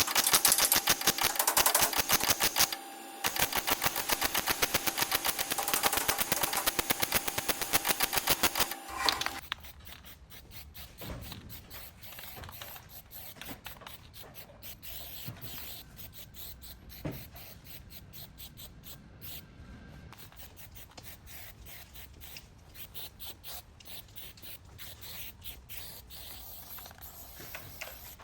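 A power tool rattling with rapid, even strikes for about nine seconds, with a short break near three seconds, then stopping, leaving faint scattered clicks and light scraping.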